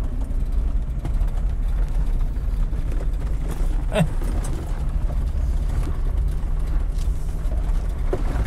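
Jeep Wrangler rolling slowly over a gravel road, a steady low rumble of engine and tyres heard from inside the cabin. A short sharp creak about four seconds in, and smaller ones near the end; the driver puts the creaking down to his toolbox.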